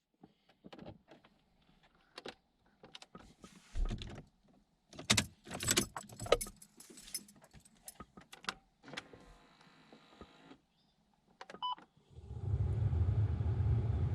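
Scattered clicks, knocks and light jangling, like handling things and keys inside the car, with two short beeps near the end; about twelve seconds in, a steady low rumble of the car running begins.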